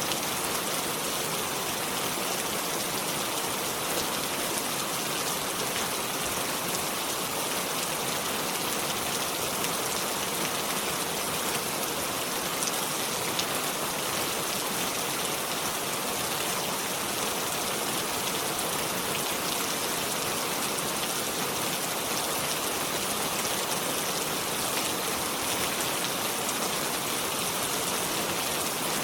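Steady rain falling: an even hiss of many small drops with a fine patter, unchanging throughout.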